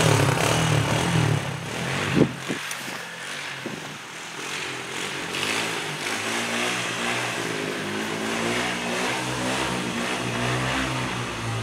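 ATV engine running as it pushes a snow plow blade, loudest at first and then quieter as the machine pulls away. A sharp knock sounds a little over two seconds in.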